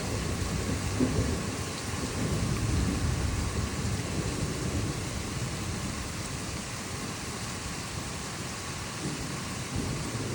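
Heavy rain falling steadily, with a low rolling rumble of thunder that is strongest in the first few seconds and eases off after about five seconds.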